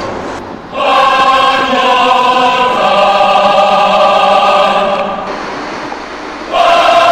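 A choir singing long held chords. There is a brief lull in the first second, then a chord held for about four seconds that fades away, and a new loud chord comes in near the end.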